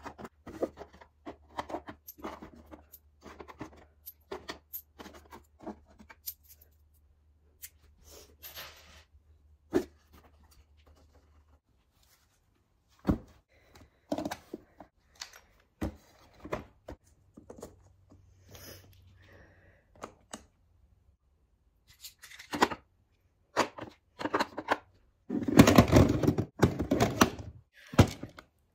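Small objects being picked up and set down in a wooden drawer: scattered light clicks and knocks, with a longer, louder clatter about 25 seconds in.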